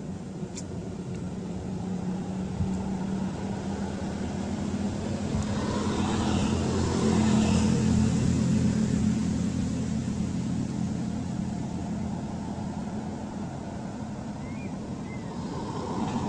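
A motor engine droning steadily, growing louder to a peak about halfway through and then fading away, as it passes by.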